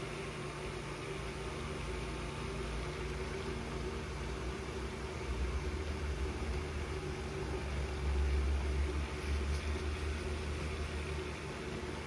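A steady low mechanical hum, with a deeper rumble that swells from about halfway through and eases off near the end.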